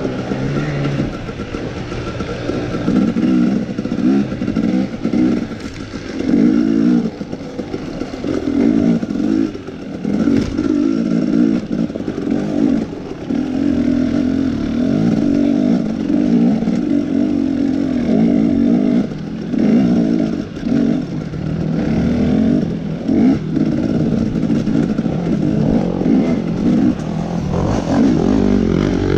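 KTM 250 dirt bike engine running hard through the woods, its pitch rising and falling again and again as the throttle opens and closes, with clatter from the bike over rough ground.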